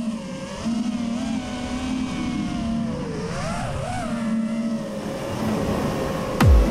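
FPV quadcopter's brushless motors and 5-inch propellers whining steadily, the pitch rising and falling in swoops as the throttle changes. Just before the end, electronic music cuts in with a loud deep bass hit that falls in pitch.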